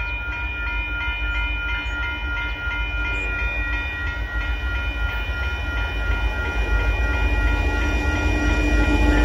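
Railroad crossing bell ringing steadily, struck a couple of times a second, while a Union Pacific freight train's diesel locomotive approaches, its low rumble growing louder through the second half.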